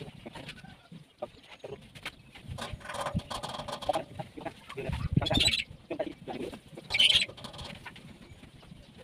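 Chickens clucking and squawking, loudest in two short calls about five and seven seconds in, over light clicks and knocks.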